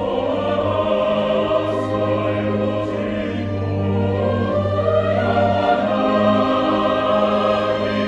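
A large mixed choir singing with a string orchestra in sustained, held chords.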